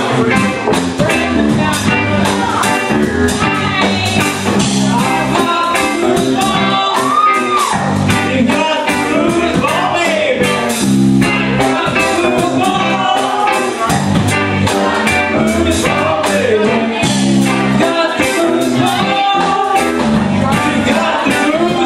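A song played by a band: a singing voice over guitar and a steady drum beat.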